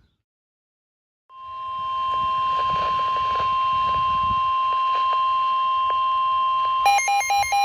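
NOAA Weather Radio's steady 1050 Hz warning alarm tone over receiver hiss, starting after about a second of silence. Near the end a weather radio's electronic alert begins beeping in a fast alternating pattern over the tone.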